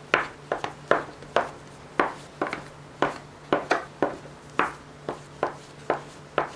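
Irregular run of short, sharp knocks on a kitchen work surface, about three a second, as risen yeast dough is portioned into small balls.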